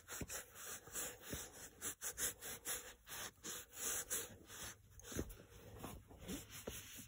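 Terry-cloth towel wiping down a chrome mirror base after polishing: a faint, steady run of quick rubbing strokes, several a second.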